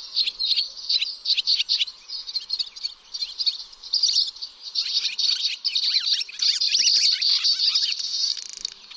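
A small songbird's rapid, high-pitched twittering song: a continuous jumble of short chirps and trills.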